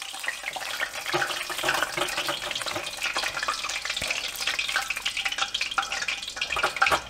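Egg rolls deep-frying in hot oil: a steady, crackling sizzle of bubbling oil.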